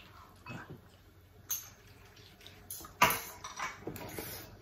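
Eating noises from bowls of noodle soup: spoons and forks tapping on ceramic bowls and soup being slurped, in scattered short sounds, the loudest about three seconds in.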